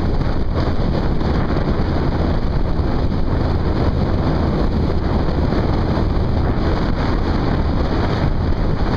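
Steady wind rush on the microphone over the low rumble of a motorcycle riding along at speed.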